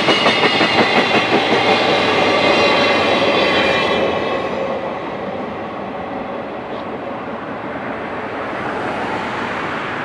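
Freight train of hopper wagons rolling past, wheels clattering over the rail joints in an even beat with a rushing hiss. The sound falls away about four to five seconds in as the last wagon clears, leaving a lower steady rumble.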